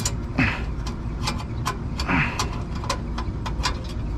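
Light clicks from a hand screwdriver working a screw, a few times a second, with a couple of short falling squeaks, over a steady low mechanical hum.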